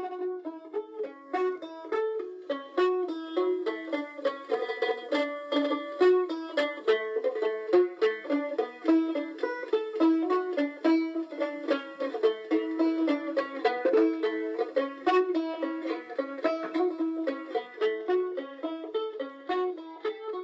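Background music: a quick tune of rapidly picked notes on plucked string instruments, running steadily throughout.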